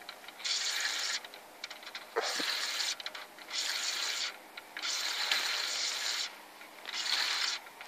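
A fishing reel being wound in five short spells of about a second each, each a steady whirring hiss that starts and stops sharply, as a hooked roach is retrieved to the net.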